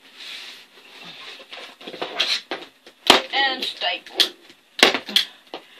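Vinyl seat cover rustling as it is pulled over a four-wheeler seat, then a hand staple gun firing several sharp snaps into the seat base from about three seconds in.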